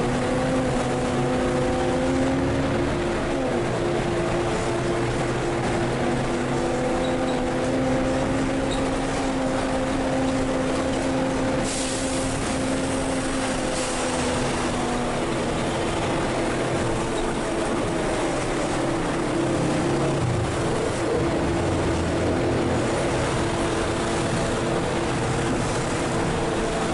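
Interior sound of a Volvo B12M bi-articulated city bus under way, heard from the front of the bus. Its diesel engine drones steadily, the pitch drifting up and down with speed, over road and cabin noise.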